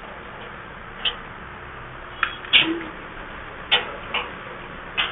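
Socket wrench with an extension working bolts on the truck's underbody cover, giving about six sharp metal clicks and clinks at irregular intervals over a steady hiss.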